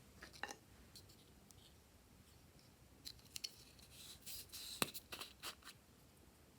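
Glossy slime being handled and mixed, making faint, scattered sticky clicks and crackles, with a denser run of them from the middle onward and one sharper snap.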